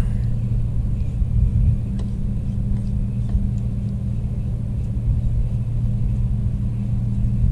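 Steady low drone of an engine running at one even speed, with a few faint clicks over it.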